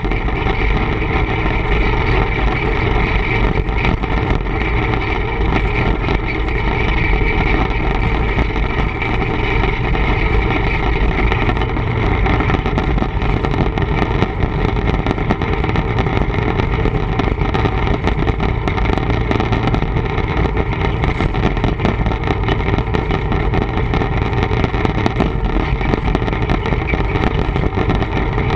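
TEM2 diesel shunting locomotive under way, its diesel engine running with a loud, steady drone that does not change.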